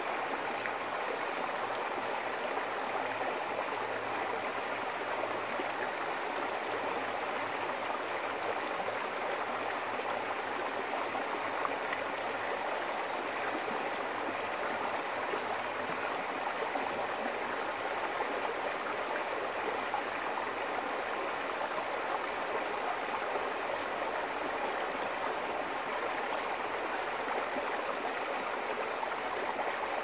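Shallow, clear stream running over stones and small riffles: a steady, unbroken rush and babble of water.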